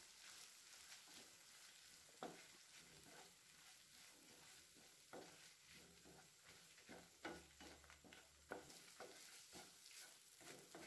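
Faint stir-frying: a wooden spatula turning grated coconut with chillies and garlic in a non-stick frying pan, soft scrapes and taps every second or so over a low sizzle.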